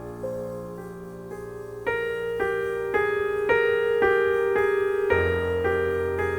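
Slow solo piano music: soft held chords, then from about two seconds in a melody of single notes struck about twice a second, growing louder, with a new low bass note entering near the end.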